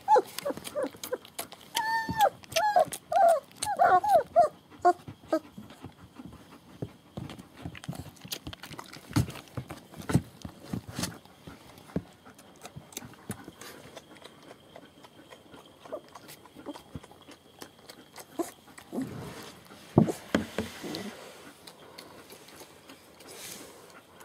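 Nursing German Shepherd puppies, about three weeks old, whimpering and squealing in a quick run of short, high cries over the first five seconds, then shuffling with small clicking noises as they feed, and a brief louder rustle about twenty seconds in.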